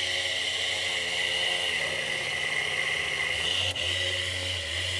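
Perio Star electric instrument sharpener running, a steady motor whine as its spinning stone is held against a Langer curette's blade; the lower hum drops slightly in pitch about two seconds in, and there is a brief click near the end.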